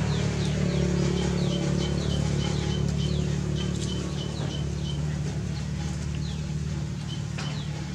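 A bird repeating short, high, falling chirps, two or three a second, over a steady low hum.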